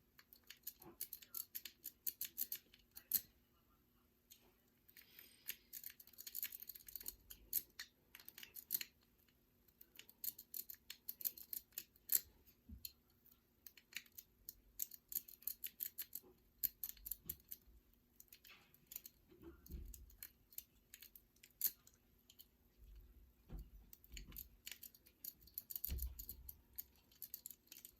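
Homemade lockpick and tension wrench working inside an old lock: irregular small metallic clicks and scraping as the pins or wafers are rocked and raked, with a few soft low thumps from handling the lock.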